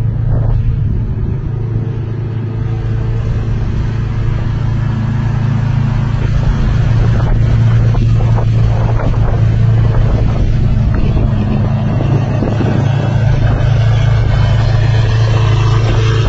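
Lamborghini Aventador SVJ's V12 engine idling steadily through a loud aftermarket exhaust, a deep, even drone that gets slightly louder about six seconds in.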